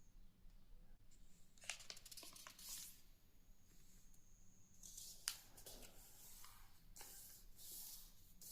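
A sheet of paper being handled and folded by hand: faint rustling and crinkling in several short bursts, with a few clicks, over a low steady hum.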